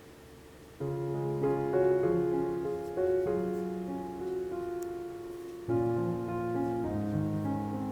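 Soft background piano music: slow sustained chords, with a first chord entering about a second in and another near six seconds.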